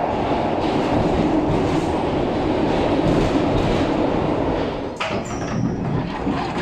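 Glasgow Subway train running, heard from inside the carriage: a steady rumble of wheels on track. About five seconds in the sound changes abruptly, and a brief high squeal follows.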